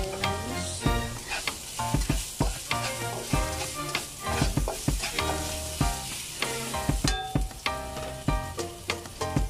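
Chopped onions sizzling in hot oil in a nonstick wok, with a spatula stirring and scraping them across the pan in short strokes. Background music plays underneath.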